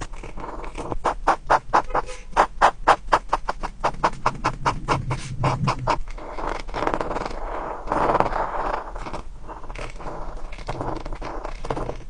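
Coloring strokes scratching on paper: quick back-and-forth strokes, about six a second, with a few longer, smoother strokes about halfway through.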